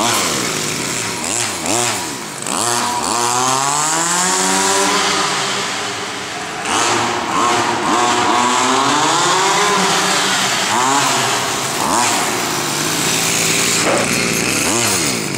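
The 30cc two-stroke gasoline engine of a RedCat Rampage XB 1/5-scale RC buggy, new and being broken in, revving up and down as the buggy is driven. There are a few quick blips of the throttle over the first couple of seconds, then longer rises and falls in pitch.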